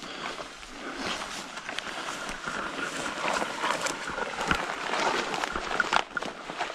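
A hiker's footsteps and rustling while walking over forest ground, an irregular run of small crunches and scuffs.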